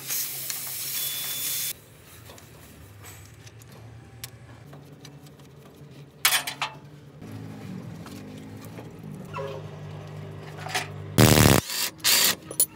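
Gas hissing out of an air-conditioning compressor hose fitting as it is loosened with an adjustable wrench, cutting off suddenly after about a second and a half. Then a steady low hum with occasional metal knocks, and near the end a loud short burst of rapid clicking and clanks as wrenches work the driveshaft flange bolts.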